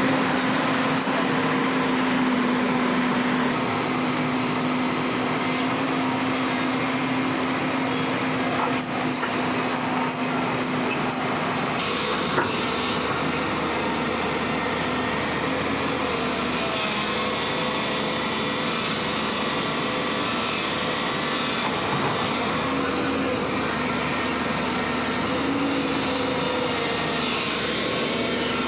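Heavy diesel machinery running steadily at a road works, with a steady drone through about the first twelve seconds and a few light knocks.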